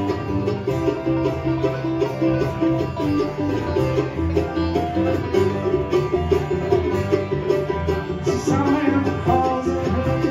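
A live country band playing an instrumental passage with picked string instruments over a steady bass line, with no singing.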